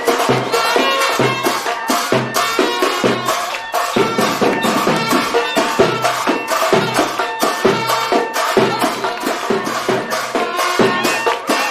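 Instrumental folk-style music: a melody over a steady, regular beat of hand percussion.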